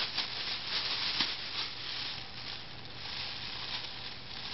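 Thin plastic grocery bag crinkling and rustling as a baby's hands crumple and shake it, in quick irregular crackles.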